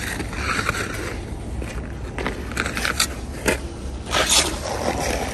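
Ice skate blades scraping and carving on rink ice, with a couple of sharp clicks around the middle and a louder, longer scrape about four seconds in.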